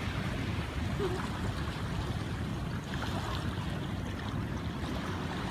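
Small surf waves washing steadily over a shallow sandy beach, with a low rumble of wind on the microphone.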